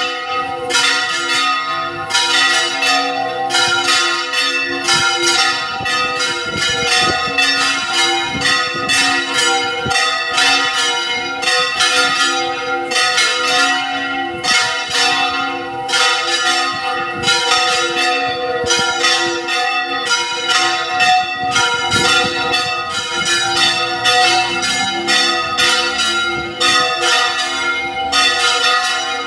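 Church bells pealing, struck rapidly and continuously with their tones ringing on between strikes.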